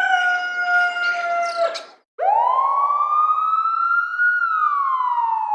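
Two sound-effect screams in a row. A held scream ends about two seconds in; after a short break comes a long scream that rises steadily in pitch, then slides back down.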